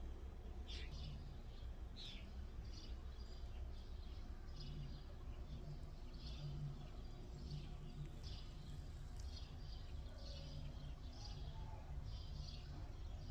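A small bird chirping over and over: short high chirps about three every two seconds, over a steady low background rumble.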